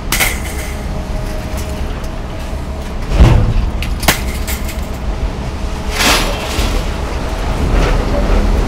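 Grapple-equipped scrap-yard material handler working: its diesel engine rumbles steadily under a faint hum, while metal clanks and crashes several times, loudest in a heavy thud about three seconds in.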